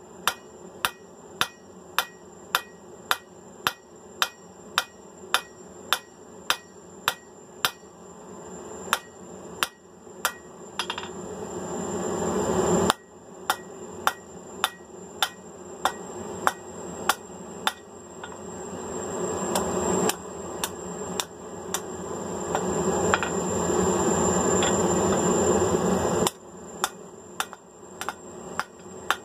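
Hand hammer striking hot mild steel on an anvil in a steady rhythm of about two to three blows a second. Behind it a rushing noise swells twice and cuts off suddenly each time.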